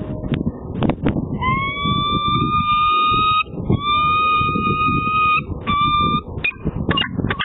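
Peregrine falcon calling at the nest ledge: two long, drawn-out calls of about two seconds each, then a shorter one, followed by a few short sharp sounds near the end. Wind rumbles on the microphone throughout.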